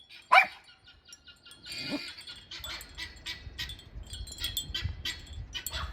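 A dog barks once, sharply. About two seconds in, a rapid, irregular high chatter of guinea fowl calls begins and keeps going.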